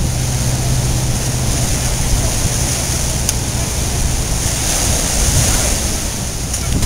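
Surf breaking and washing over the rocks at the foot of a seawall, a steady rushing noise, with wind buffeting the microphone.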